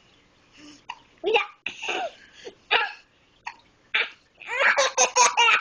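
A young child laughing in separate short bursts with brief, sharp vocal sounds between them, breaking into a quick run of repeated laughs near the end.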